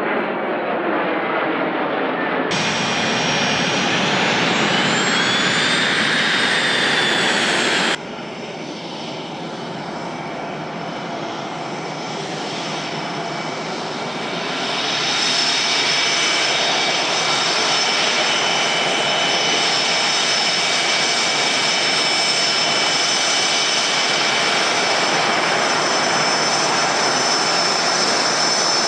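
Jet engine whining at taxi power: the FA-50's single F404 turbofan as the aircraft rolls toward the listener, a steady rush with several high whine tones that grows louder about halfway through. Before it, after a sharp cut, comes a few seconds of jet noise whose high tones rise and then fall in pitch.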